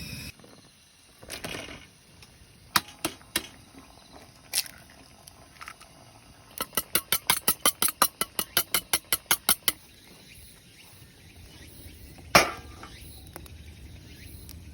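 Sharp clicks and taps of cooking utensils: a few single clicks, then a steady run of quick clicks, about six a second for some three seconds, and one louder knock near the end.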